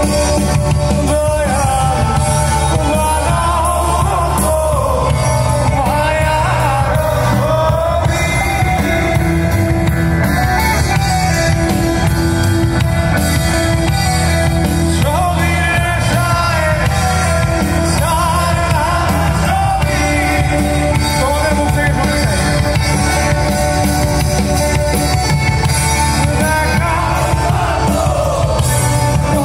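Live rock band playing loud: a singer over electric guitars, bass guitar and drums.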